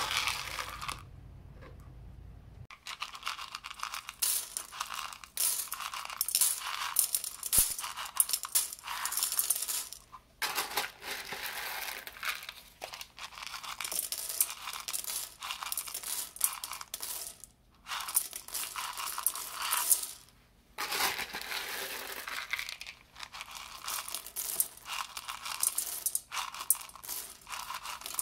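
Dried pinto beans rattling and pattering as they are scooped out of a plastic container and poured through a hand into a stainless steel pot: a dense stream of small clicks with a few short pauses.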